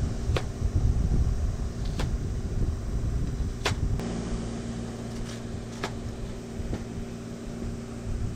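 A knife striking a cutting board in slow, separate cuts, about four or five sharp clicks spaced a second and a half or more apart, over a steady low rumble with a hum.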